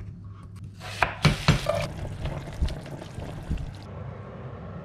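Kitchen food-prep sounds: a knife cutting bell peppers on a wooden cutting board, with a few sharp knocks about a second in and softer knocks and clatter of utensils after, over a low steady hum.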